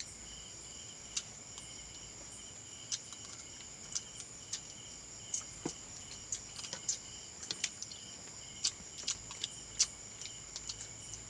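Crickets chirping steadily, a high continuous trill with a second, lower band beneath it. Scattered sharp clicks and taps come through it, more often in the second half.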